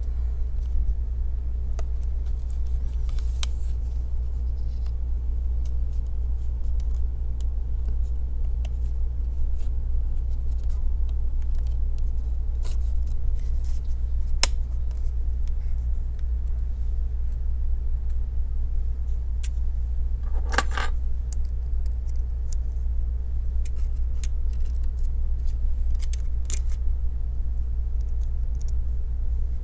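Steady low hum throughout, with scattered small clicks and ticks of screws and a screwdriver on a laptop's case and a short rattle of small metal parts about two-thirds of the way in.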